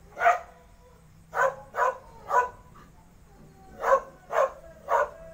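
A dog barking seven times: one bark, then a run of three, then another run of three, each a short sharp bark.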